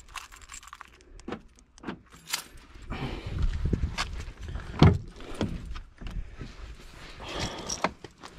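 Scattered clicks and knocks of close handling noise, the loudest about five seconds in, over a low rumble of wind on the microphone.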